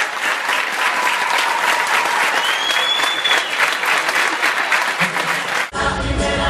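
Large crowd clapping steadily in an arena, with a whistle rising and falling about two and a half seconds in. Near the end the applause cuts off suddenly into music.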